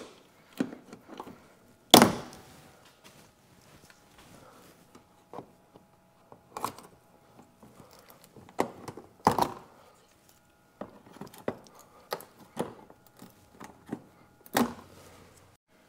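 Plastic push-pin retainers being pried and popped out of a minivan's lower plastic bumper cover: scattered clicks and knocks, the loudest about two seconds in, with a few more sharp knocks later. A faint steady hum sits underneath in the second half.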